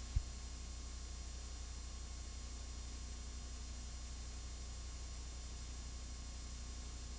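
Steady electrical hum and hiss of a cassette PA tape running on with no music, with one short low thump just after the start.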